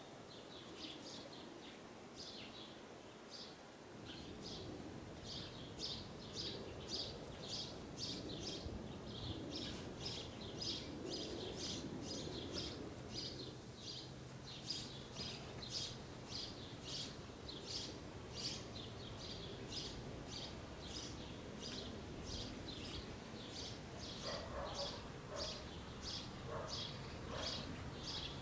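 A bird calling with one short, high chirp repeated about twice a second, over a quiet, steady outdoor background.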